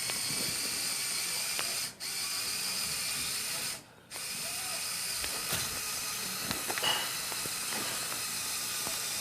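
Lego Technic Power Functions electric motor running a plastic gear train, a steady high-pitched whirring that stops briefly about two seconds in and again about four seconds in before running on.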